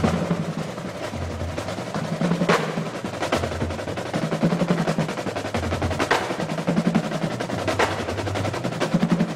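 A corps of snare drums playing fast rolls and rudiments in unison, in the Basel drumming style, with bass drums beating a pattern underneath and a few sharp accented strokes standing out.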